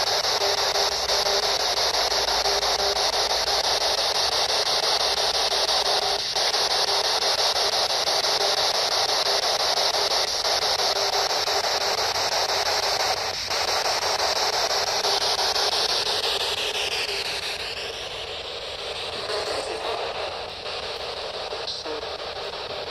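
P-SB11 dual-sweep spirit box scanning through radio frequencies, giving out a steady hiss of radio static with a few faint ticks; the hiss shifts about sixteen seconds in and is quieter for the last few seconds.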